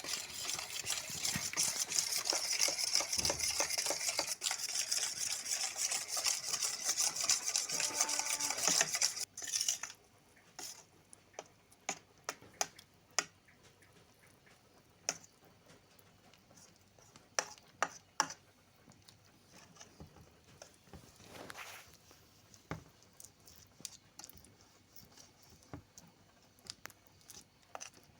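Food sizzling in a pan while being stirred: a steady hiss that cuts off suddenly after about nine seconds, followed by scattered light clicks and taps.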